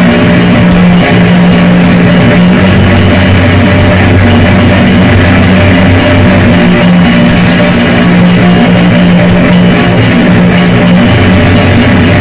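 Depressive black metal song: a dense, loud wall of guitars holding long low notes that change every few seconds, over a steady, evenly spaced drum beat.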